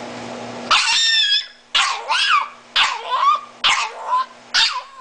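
Miniature Italian greyhound giving five high-pitched, yowling screams about a second apart. Each call bends up and down in pitch like a sung "mommy", beginning just under a second in.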